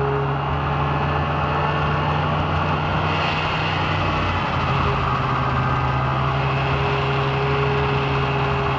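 Snowmobile engine running steadily while riding across the glacier: a constant low drone with a rushing noise over it.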